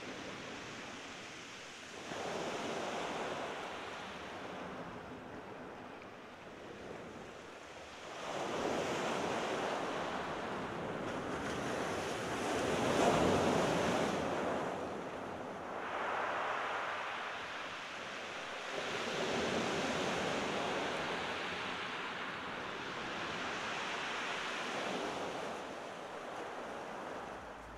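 Sea waves breaking and washing up a shingle beach, swelling and fading about every few seconds, with some wind in the background.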